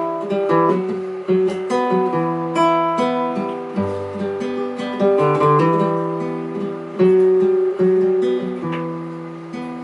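Acoustic guitar playing the introduction of a song: a run of chords, each struck and left ringing, with no singing.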